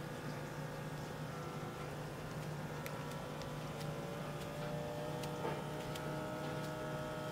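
Small electric air pump in a HEYAXA upper-arm blood pressure monitor running steadily, inflating the arm cuff as the pressure builds at the start of a measurement. A steady hum with a few faint ticks, some of its tones creeping slowly upward.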